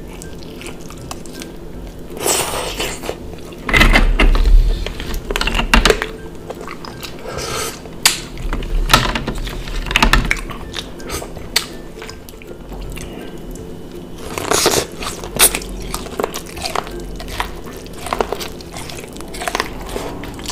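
Close-up eating sounds of a shellfish seafood boil: irregular bites, wet smacking chewing and crunches as meat is pulled from the shells with the teeth, in clusters with short lulls between.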